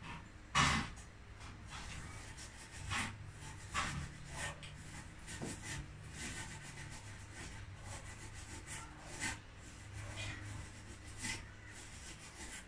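Sounds of someone eating by hand: irregular chewing and mouth noises with fingers working fried fish and rice on a plate, and a sharper click about half a second in.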